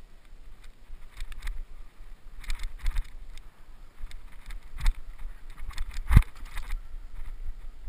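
Mountain bike rolling down a rough dirt trail: wind buffeting the microphone under irregular rattles and knocks as the bike goes over bumps, the loudest knock about six seconds in.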